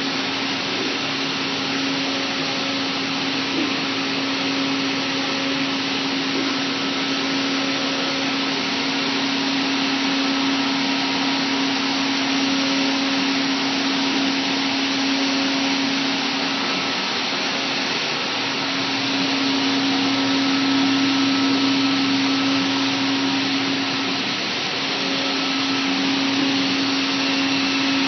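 Komo VR510 CNC router running with its vacuum hold-down system: an even rushing noise with a steady mid-pitched hum over it, the level barely changing.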